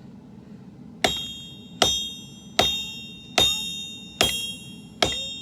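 Forging hammer striking a sword blade on an anvil: six even blows about 0.8 seconds apart starting about a second in, each leaving a bright metallic ring that fades before the next.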